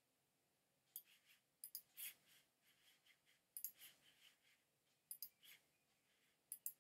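Faint clicking of a computer's pointer button in short groups of two or three quick clicks, five groups about a second or so apart, over near silence.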